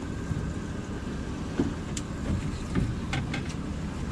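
Steady low rumble aboard a small fishing boat at sea, with a few light clicks about two and three seconds in.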